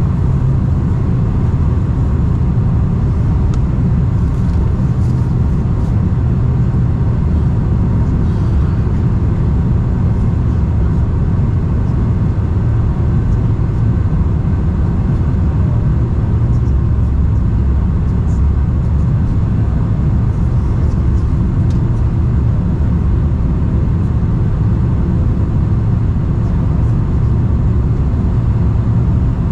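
Steady low roar inside the passenger cabin of a four-engine Boeing 747-400 airliner: engine and airflow noise, even in level throughout with no thumps or changes.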